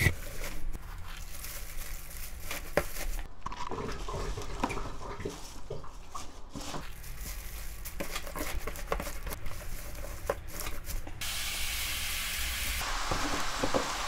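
Leafy godeulppaegi greens rustling and crackling as handfuls are dropped into a plastic kimchi container and pressed down by hand over coarse salt. About eleven seconds in, a steady rush of running water starts.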